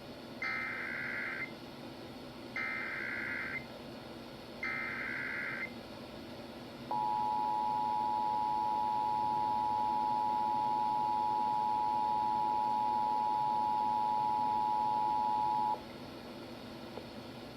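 Emergency Alert System header: three one-second bursts of digital SAME header data about two seconds apart, then the steady two-tone EAS attention signal held for about nine seconds and cutting off abruptly. Together they mark the start of an EAS test message.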